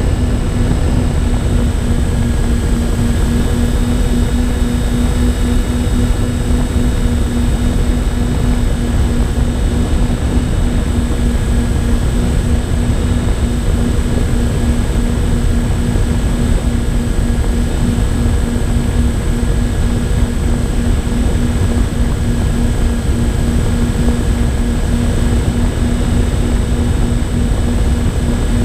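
Twin electric motors and propellers of a MyTwinDream FPV model plane droning at a steady cruise pitch. The onboard camera's microphone also picks up heavy, rumbling wind buffeting.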